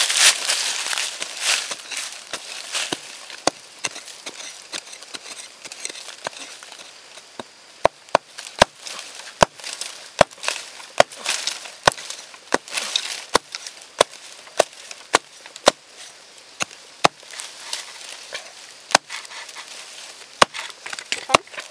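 Digging in dry, crumbly soil by hand. At first the earth scrapes and crumbles loudly; from the middle on, a tool strikes the ground sharply about once a second, with softer scraping between the strikes.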